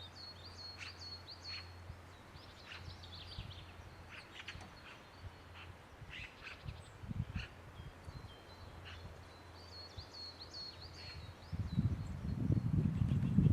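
Wild birds singing and chirping: high twittering phrases and short calls, over a faint steady low hum. Near the end a loud low rumbling noise starts and grows.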